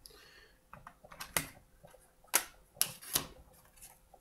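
Several sharp plastic clicks and snaps as the Honeywell Pro 3000 thermostat's faceplate is pried apart from its wall base.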